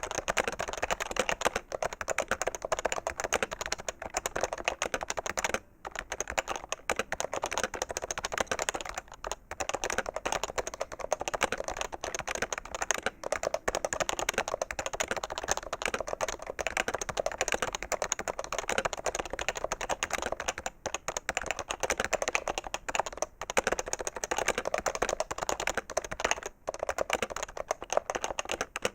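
Fast, continuous typing on a PFU HHKB Professional 2 keyboard with Topre capacitive key switches, a dense stream of key strokes broken by a few short pauses. A heavier sound than a mechanical-switch keyboard and a sharper one than other Topre boards.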